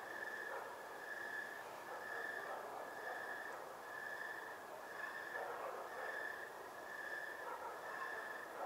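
Night insects calling in the dark: a chirping call repeats about once a second, each call about half a second long, over a soft steady hiss.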